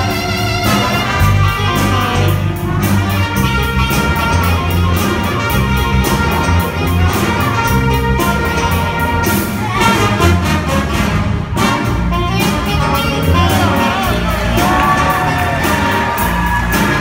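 High-school jazz band playing, with saxophones, trumpets, electric guitar and a drum kit keeping a steady beat.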